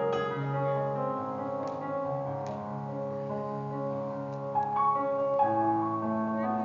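Piano sound from an electronic keyboard playing slow, sustained chords that change every second or two, with no voice over it: an instrumental passage between sung lines.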